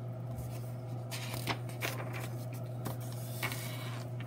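Paper pages of a picture book being turned by hand, rustling with a few short, sharp flicks, over a steady low hum.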